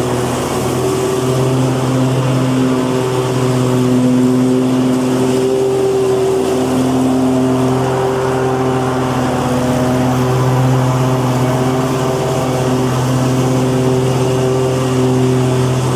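Lawn mower engine running steadily at a constant speed, a loud, even hum with a slight waver in pitch.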